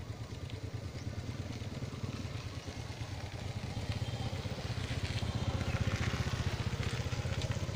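A small engine idling steadily, a low pulsing rumble that grows a little louder about four seconds in.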